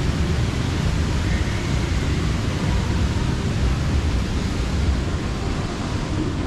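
Steady rushing noise with a heavy, uneven low rumble: air buffeting the microphone of a camera carried on foot.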